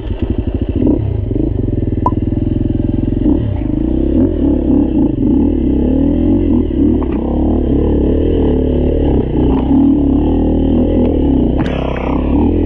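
KTM 350 dirt bike's four-stroke single-cylinder engine running under load, heard from on board. It holds a steady note for about three seconds, then revs up and down unevenly as the bike climbs a muddy, rutted trail.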